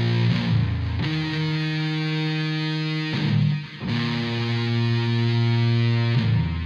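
Distorted electric guitar playing long held chords that change every couple of seconds, with a brief drop-out a little past the middle.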